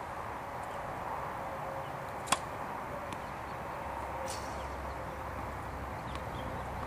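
One sharp crack of a tennis ball impact about two seconds in, over steady outdoor background noise, with a fainter click a couple of seconds later.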